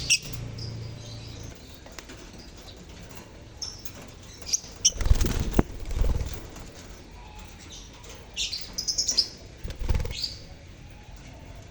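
A colony of lovebirds (Agapornis) chirping in short, high calls, with bursts of wing flapping about halfway through and again near the end.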